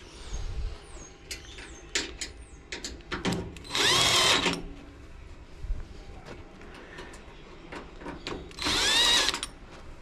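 Cordless drill-driver spinning in two short bursts, about four seconds in and near the end, its motor whine rising then falling, as it works screws on a washing machine's cabinet. Light clicks and knocks of screws and tools being handled in between.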